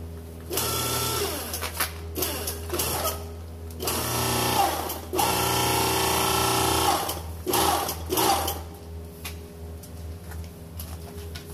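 Hydraulic press pump motor running in about five bursts of a second or two each, its pitch shifting within some bursts, over a steady low hum: the press being worked to load a jack clamp.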